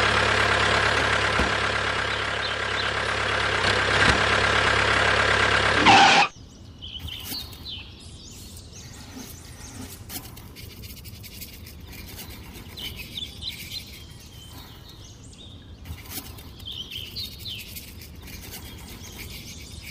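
A loud, steady mechanical whirr with a constant hum cuts off suddenly about six seconds in. After it, birds chirp faintly and intermittently over quiet outdoor background.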